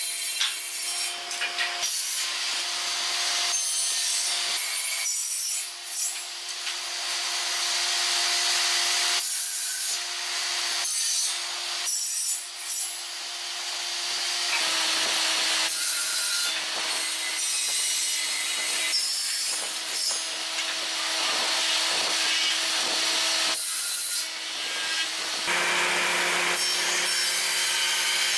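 Electric woodworking machines running with a steady motor whine while cutting wood, the cutting noise changing abruptly several times.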